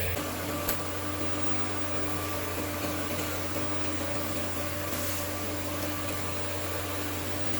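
Automatic pipe welding machine running during TIG welding of carbon steel pipe: a steady electrical hum over an even hiss, with one sharp click a little under a second in.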